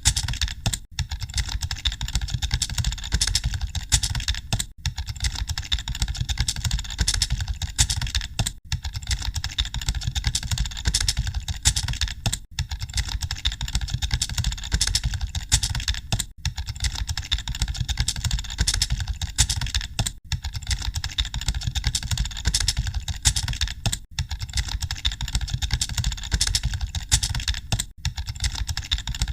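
Fast, continuous typing on a computer keyboard: a dense clatter of keystrokes, broken by a brief gap about every four seconds.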